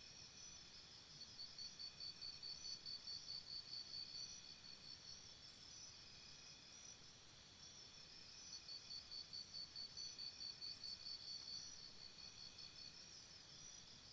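Faint, high insect trilling in an even pulse of about six beats a second, in two runs of about three seconds each, over a faint steady high hum.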